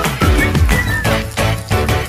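Upbeat electronic intro music with a steady beat and a few falling, whistle-like synth notes.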